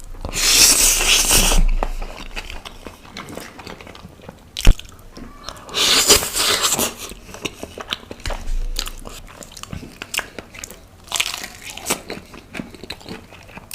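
Close-miked mukbang eating sounds: three long noisy bites or slurps, with small wet chewing clicks between them and one sharp click a little before the middle.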